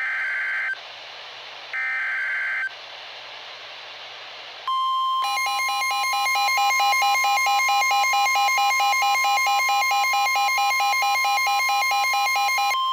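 NOAA Weather Radio emergency alert signalling. First come the last two of the three short SAME digital header bursts, about a second apart. Some two seconds later the steady 1050 Hz warning alarm tone starts, which marks a warning about to be read, and from about five seconds in a fast pulsing beep runs over it.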